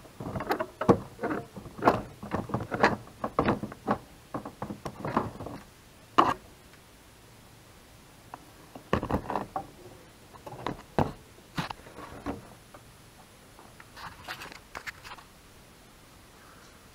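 Ford Focus MK2 plastic headlight housing being handled and set into its mounting: a string of irregular plastic knocks, clicks and scrapes in three bouts, with quiet gaps between.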